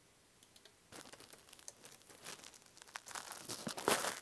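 A computer keyboard being typed on quickly, giving a dense run of irregular clicks and crackle that starts about a second in and grows louder toward the end.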